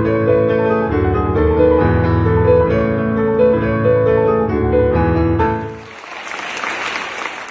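Classical piano music plays until about five and a half seconds in, then an audience applauds.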